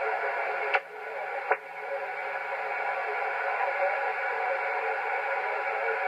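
Open-channel band noise from a Yaesu FT-897D receiving on 10 m sideband: a steady hiss squeezed into the narrow voice band of the receiver, with no signal on the frequency after the distant station's sign-off. Two sharp clicks a little under a second apart near the start, each followed by a brief drop in the noise.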